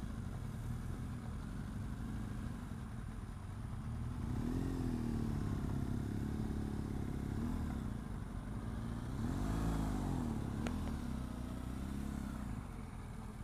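BMW R1200GS flat-twin engine running at low speed while the bike is ridden slowly and pulled in to park, the revs rising and falling a few times. A single sharp click late on.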